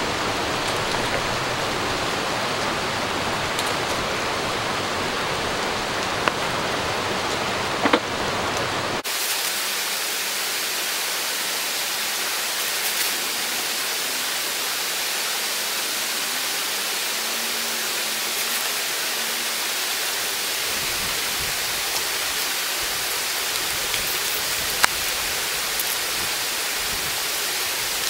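Steady rushing noise, like running water or wind, with a few faint clicks. About nine seconds in its sound changes abruptly and the lowest part of the noise drops away.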